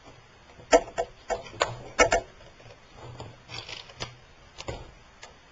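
Sharp plastic clicks and knocks from laptop parts being handled and worked loose inside an opened notebook chassis: a quick run of about six clicks in the first two seconds or so, a brief rustle, then one more knock near the end.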